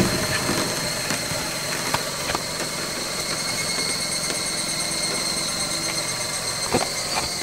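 Car engine running at a steady idle while a car with a wheel off a dirt track is worked back onto it. A steady high-pitched whine runs alongside.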